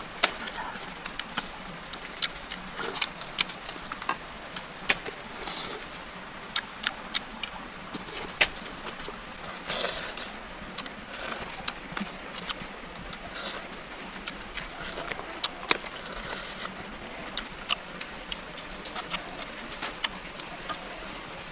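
Close-up eating sounds: irregular sharp clicks and crunches of chewing fried frog, with a wooden spatula tapping and scraping a metal wok, over a faint steady high hiss.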